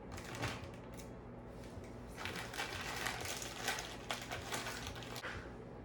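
Packaging rustling and crinkling while a boxed accessory kit is opened, with scattered small clicks. It grows busier from about two seconds in and dies down near the end.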